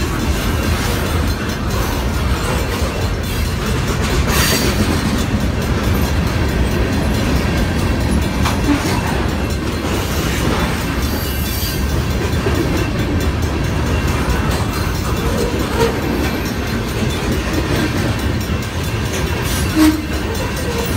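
BNSF freight train's covered hoppers and boxcars rolling past close by: a steady rumble of steel wheels on the rails, with clickety-clack over the rail joints. A sharp knock comes about four seconds in, and another near the end.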